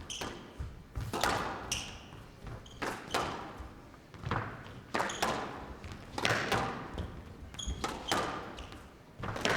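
Squash rally: the ball struck by rackets and hitting the court walls, a run of sharp knocks about once a second, with a few brief high squeaks among them.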